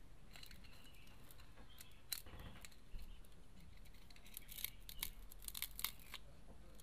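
Faint, scattered clicks and crackles of a plastic opening tool prying around a Vivo Y71 phone's edge, with the heat-softened adhesive letting go as the screen separates from the frame. The clicks gather about two seconds in and again through the second half.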